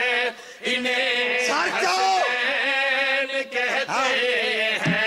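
Men's voices chanting a devotional Shia qasida: the reciter sings long held notes that waver and glide in pitch, and other men sing with him. The chant breaks off briefly about half a second in.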